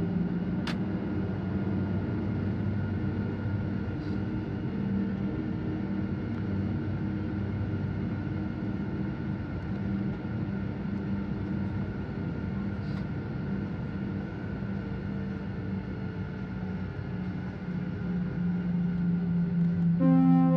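Steady cabin noise of an airliner rolling slowly on the ground: a low jet-engine hum with a few steady tones over a rushing noise, and a single sharp click about a second in. Music comes in just before the end.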